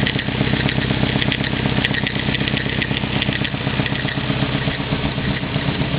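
Engine-swapped Nissan 240SX idling steadily, with a quick, irregular ticking over it that stops about three and a half seconds in. The ticking is an odd noise from the new engine that the owner can't explain.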